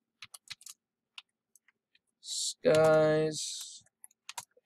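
Typing on a computer keyboard: a quick run of keystroke clicks in the first second, a few scattered taps after it, and a couple more near the end.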